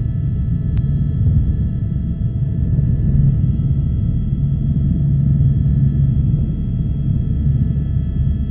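Eurocopter AS350 helicopter's turboshaft engine and rotor heard from inside the cabin as it moves off for takeoff: a steady low rumble with a constant high turbine whine over it. A faint click just under a second in.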